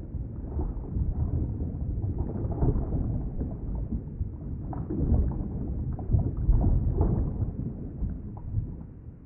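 Underwater ambience: a muffled, low rumble of moving water that swells and fades.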